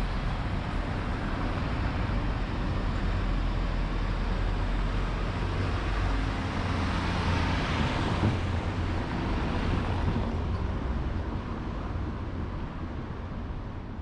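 Cars driving past on a narrow cobbled street. A steady low engine rumble comes first, then a car passes close by about halfway through, its tyre noise on the cobbles swelling and then fading away.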